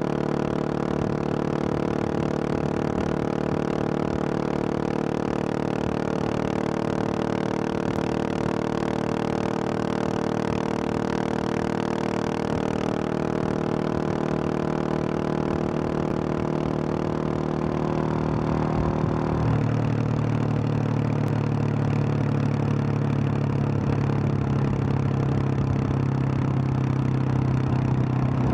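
2021 Husqvarna 701 Supermoto's single-cylinder engine with an aftermarket Wings exhaust, running steadily under way on the road. About two-thirds of the way through, its note changes and becomes slightly louder.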